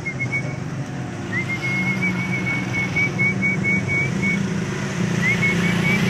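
A person whistling a high, pulsing trill, about four pulses a second, in three stretches, the longest about three seconds; the last ends in a falling slide. A steady low hum runs underneath.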